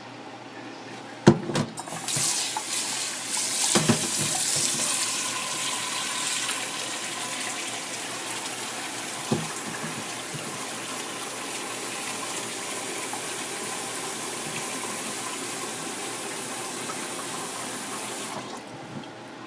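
Water running from a kitchen tap, a steady rush lasting about sixteen seconds and then shut off abruptly near the end. A few sharp knocks sound near the start.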